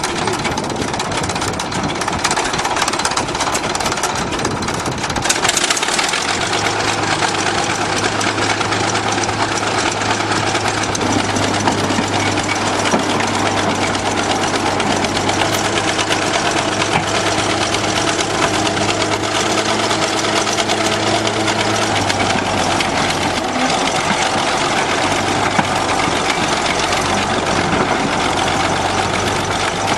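Bulldozer's diesel engine running steadily with a knocking clatter. It picks up about five seconds in and then holds a steady low hum.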